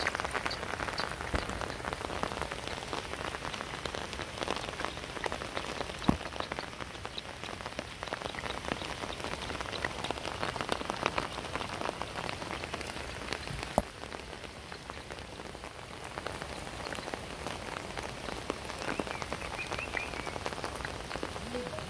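Heavy rain falling non-stop on the surface of a flooded river: a steady, dense patter of drops, with a couple of sharper single taps about six and fourteen seconds in.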